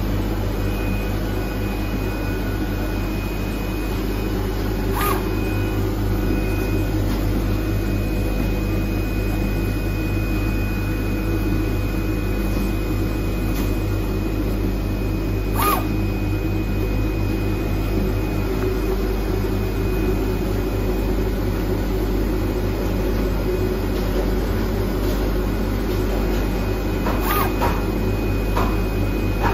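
IECHO PK0705 Plus flatbed digital cutter running, cutting round stickers from a sheet: a steady machine hum with a few sharp clicks, about ten seconds apart.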